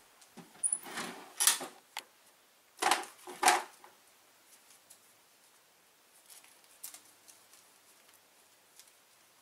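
Footsteps and bumps, then a wooden drawer pulled open with two sharp clunks about three seconds in. After that, faint rustling of paper banknotes being handled.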